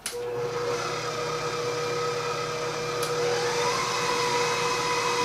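Electric stand mixer switched on and running steadily, beating an egg and vanilla into creamed butter and sugar. The motor's pitch rises slightly about three and a half seconds in.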